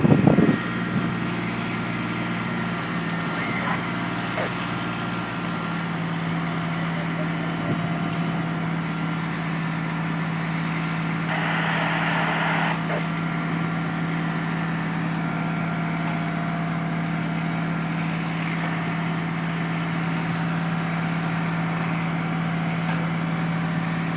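Fire truck engine running steadily at a constant pitch, with a brief loud noise right at the start and a burst of hiss about eleven seconds in, lasting about a second and a half.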